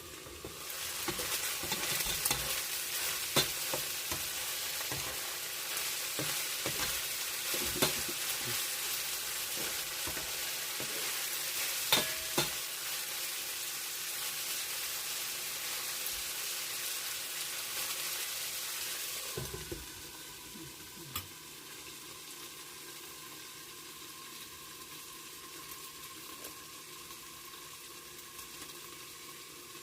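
Pork sizzling as it fries in a pan, stirred with a utensil that clicks and scrapes against the pan now and then. About two-thirds of the way through the sizzle drops to a quieter, steady level.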